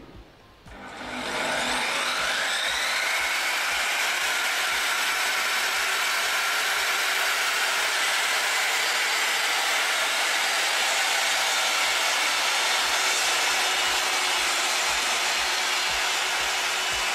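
An electric mitre saw's motor starting about a second in, its whine rising in pitch before settling, then running steadily at full speed.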